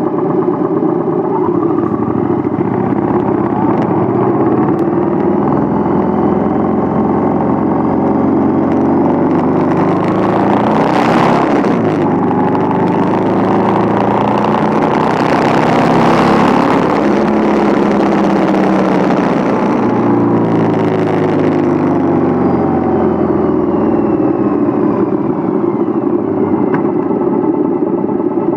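Yamaha V-Star 1100 Classic's air-cooled V-twin engine running on the move, its pitch rising and falling as it speeds up and changes gear. A louder rushing noise swells twice around the middle.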